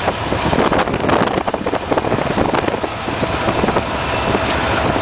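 Heavy wind buffeting on the microphone from a moving car, over the low rumble of road noise and the diesel freight locomotives running alongside.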